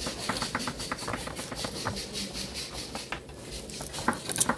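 Knife chopping vegetables on a wooden cutting board, in quick, irregular clicks.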